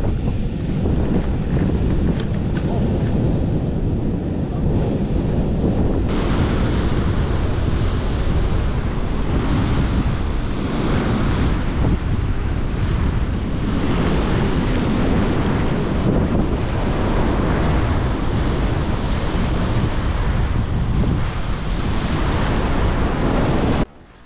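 Wind buffeting the microphone over surf washing in. The noise turns brighter about six seconds in and drops off abruptly near the end.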